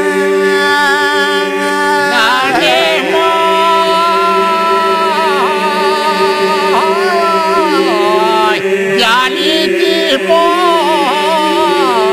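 Albanian iso-polyphonic singing by men's voices: a steady drone (the iso) is held throughout while a lead voice sings a wavering, ornamented melody above it.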